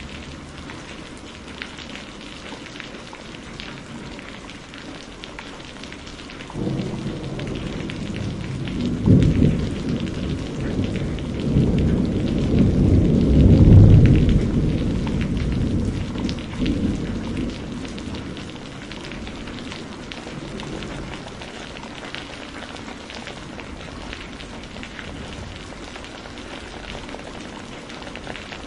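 Steady rain falling, with one long roll of thunder that starts about a quarter of the way in, swells to its loudest around the middle, and rumbles away a few seconds later.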